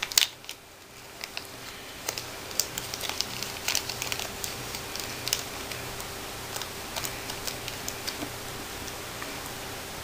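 Light, irregular clicks and taps of fingers handling a small sample of loose mineral eyeshadow while swatching it. They are sharpest right at the start and busiest in the middle, over a faint steady hum.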